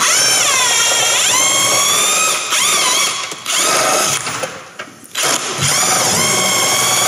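Cordless drill driving a bolt through a tight-fitting 3D-printed polyurethane motor mount. The motor whine rises and falls in pitch as it labours against the tight bolt, stopping briefly about three and a half seconds in and again for about a second around five seconds before starting up again.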